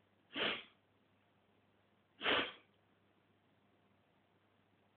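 A man's two short, sharp breaths through the nose, about two seconds apart, as a sneeze builds up.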